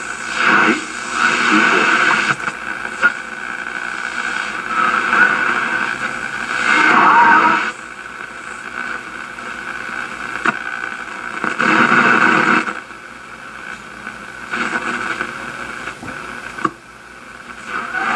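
Shortwave reception from a 1937 Sears Silvertone tube radio's speaker: a steady hiss and static with faint whistling tones, and muffled broadcast voices that swell and fade irregularly.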